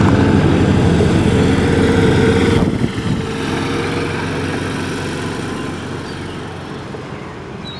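Golf cart's small engine running as the cart drives, with an even pulsing note. About three seconds in the engine note drops off sharply as the cart comes to a stop, leaving a quieter hum that fades away.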